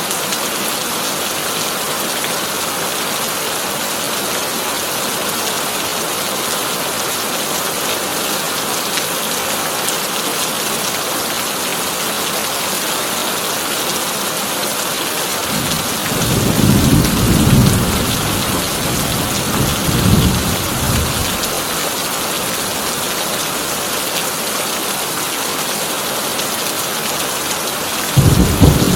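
Heavy rain drumming steadily on a tin roof, an even hiss. About halfway through, thunder rolls in as a low rumble that swells twice and fades, and another clap of thunder begins near the end.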